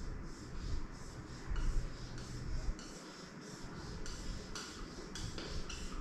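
Felt-tip marker rubbing on a whiteboard in short repeated strokes, about three a second, as a square-wave line is drawn.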